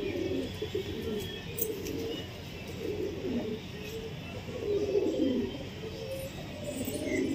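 Domestic pigeons cooing, several low, warbling coos overlapping in repeated bouts.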